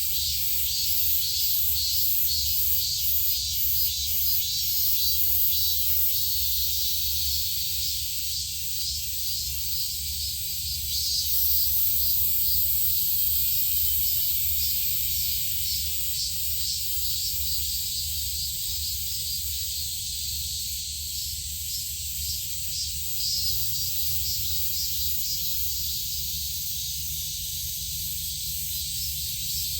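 Insects buzzing in a steady high-pitched chorus that pulses in a regular beat, over a low steady hum.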